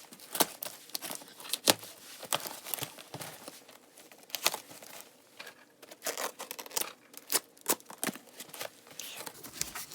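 Cardboard shipping box and its packing being opened and rummaged through: irregular rustling and crinkling with many sharp clicks and taps.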